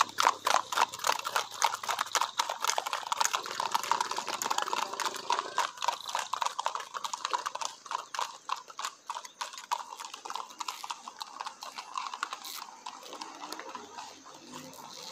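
Hoofbeats of several ridden gaited (marchador) horses on asphalt: a fast, dense clatter of hooves that grows fainter as the horses move away.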